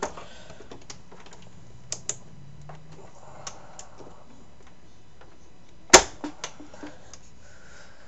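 Plastic clicks and small knocks as a RAM module is pushed down into its motherboard slot, with one sharp, loud snap about six seconds in as the slot's retaining clips lock the module in place.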